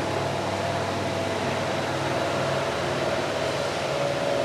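Steady mechanical hum and noise with a faint whine that drops slightly in pitch near the end, like a fan or machinery running in a large workshop.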